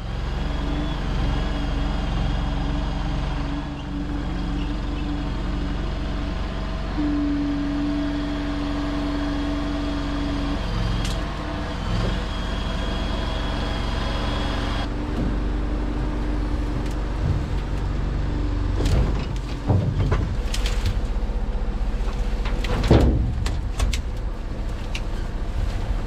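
Stand-on mini skid steer's engine running steadily under load as it carries brush in its grapple, with a louder steady tone for a few seconds near the middle and the engine easing off a little past halfway. In the second half come sharp knocks and crackling as pine branches are pulled off the grapple into a trailer.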